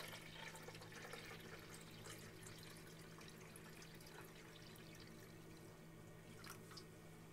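A thin stream of water pouring faintly from a stainless steel Travel Berkey chamber into a plastic Brita pitcher, over a steady low hum.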